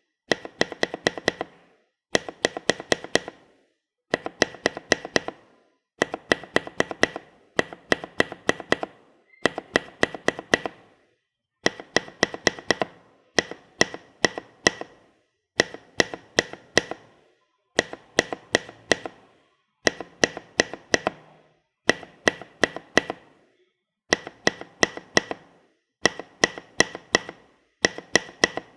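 Mechanical keyboard spacebar with an SP SA-profile keycap on a Hyperglide Cherry MX Black switch with a 65 g spring and ML V1 stabilizers, pressed and released rapidly. The sharp clacks come in bursts of about six to eight, a burst roughly every two seconds.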